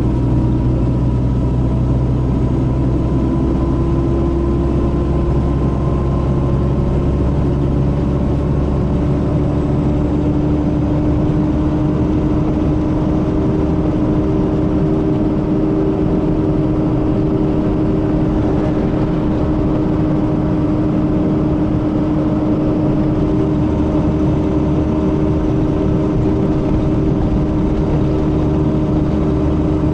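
Mercedes-Benz O500RS coach's diesel engine running under way, a steady drone whose pitch rises slightly over the first ten seconds and then holds. The uploader likens its engine sound to the older O400RSE.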